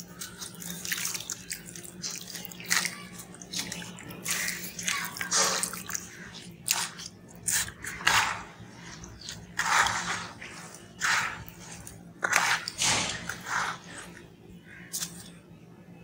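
Wet sand-cement chunks crumbling in the hands and dropping into a basin of water: a run of irregular crunches, splashes and drips. A steady low hum runs underneath.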